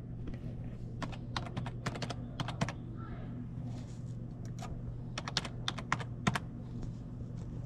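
Irregular light clicks and taps in quick little clusters, over a steady low hum.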